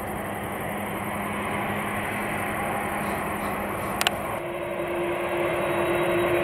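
Steady jet engine noise at an airport. About four seconds in, an edit cuts it with a click to the louder engines of a Boeing 747 on the runway, running with a steady whine.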